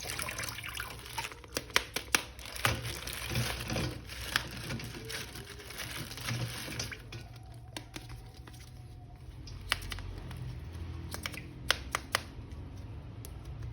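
Scattered small clicks and taps of a plastic action figure being handled and cleaned, over a soft hiss that fades out about halfway through.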